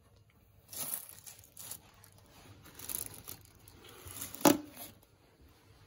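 Thin plastic carry bag crinkling and rustling in several short bursts as a cardboard takeaway box inside it is handled. The loudest is a sharp crackle about four and a half seconds in.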